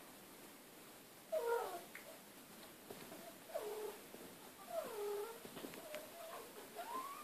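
A cat meowing four times. The first three calls slide down in pitch, and the last, near the end, rises.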